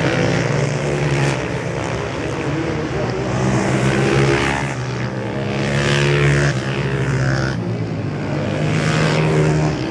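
Supermoto racing motorcycles riding past on a track, several engines at once revving up and down through corners and gear changes. The engine pitch rises and falls repeatedly, loudest near the middle, and the sound changes abruptly about three-quarters of the way in.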